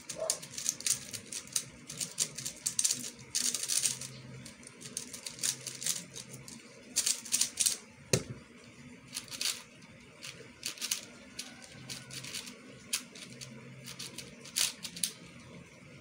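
QiYi plastic speedcube being turned fast: bursts of rapid clicking turns broken by short pauses, with one thump about halfway through.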